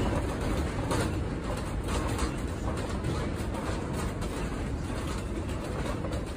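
A house shaking in an earthquake: a steady low rumble with scattered knocks and rattles from the building and its contents, easing slightly as the shaking dies down.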